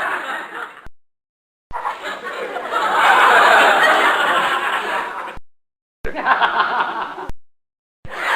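A crowd laughing, in three separate stretches cut apart by short gaps of dead silence: one fading out about a second in, a longer one that swells in the middle, and a short one near the end.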